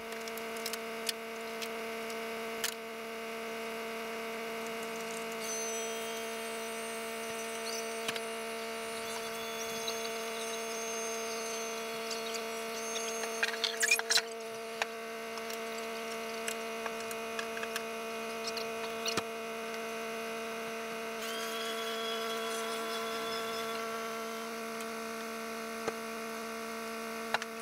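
Steady hum of a Transit tilt-and-slide recovery truck's hydraulic pump running while the bed is tilted and a car is unloaded, with scattered clicks and knocks. A higher whine joins about three-quarters of the way in.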